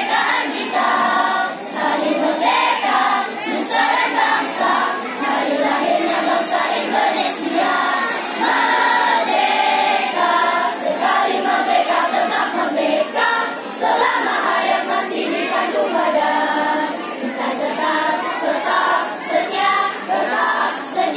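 A school choir of young teenage students, mostly girls with some boys, singing together without a break.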